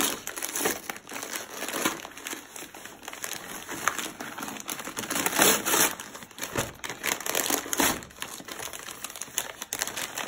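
Gift wrapping paper crinkling and tearing as a child pulls it off a present by hand: irregular rustling, loudest about five and a half seconds in and again near eight seconds.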